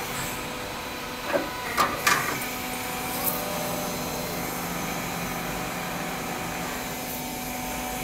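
Roll forming machine running, a steady motor-and-roller hum as the steel garage door track profile is formed and fed through. A few sharp metallic knocks come between one and two seconds in.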